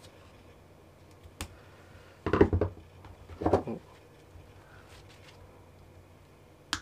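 Insulated multi-function electrician's pliers set down on a wooden worktop: two short clattering knocks about a second apart, with a light click shortly before them.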